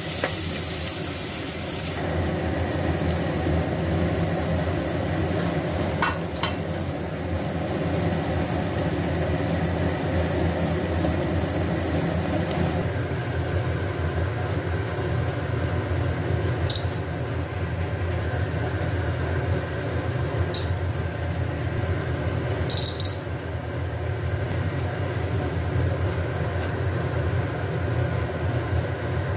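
Onions sizzling in hot oil as they are stirred in a pressure cooker. The sizzle cuts off after about two seconds, leaving a steady low hum with a few faint clicks.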